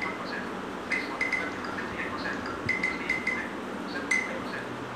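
Smartphone giving short, high, chime-like blips in small clusters as its screen is touched: the touch-feedback sounds of the phone's screen-reader accessibility mode.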